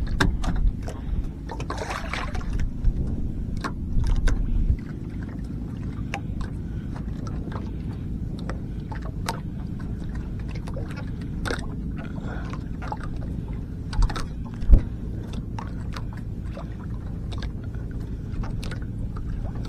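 Small wooden outrigger boat riding at sea, with a steady low rumble underneath and scattered knocks and taps against the hull as a hand line is worked over the side. The loudest knock comes about fifteen seconds in.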